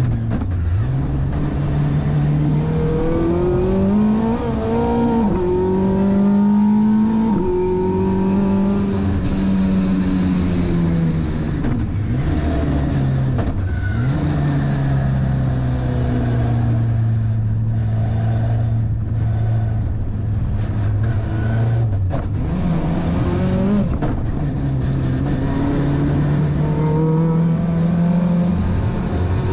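Vauxhall 2.3 XE four-cylinder race engine on individual throttle bodies in a Toyota Starlet KP61, heard from inside the cabin on track. The engine note repeatedly climbs under acceleration and drops sharply at shifts and lifts, with a long stretch of steady, lower-pitched running near the middle.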